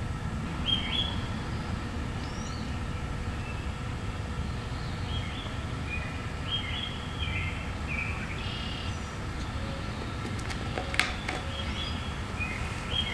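Birds chirping in short, repeated calls over a steady low rumble of outdoor background noise, with a couple of sharp clicks about eleven seconds in.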